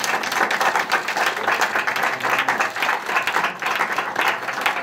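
A roomful of people applauding: many hands clapping together.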